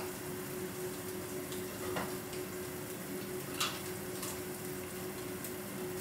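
Quiet room tone with a steady low hum and a few faint clicks and taps from eating with chopsticks.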